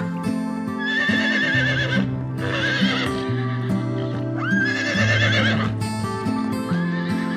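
Horses whinnying: about four quavering neighs, each around a second long, the last cut short near the end, over background music.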